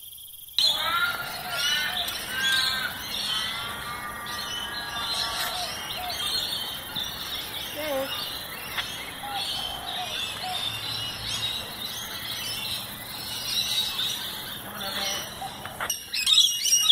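Many birds chirping and calling in the trees, short overlapping calls throughout, growing louder near the end.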